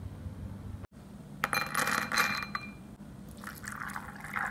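Almonds dropped into a glass bowl, clinking and ringing against the glass for about a second. From about three seconds in, hot water is poured over them, splashing steadily.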